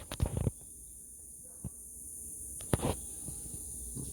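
A few sharp clicks and knocks from handling the RC truck's plastic parts: a cluster at the start, a single click after about a second and a half, and another cluster near three seconds. A steady high hiss runs behind them.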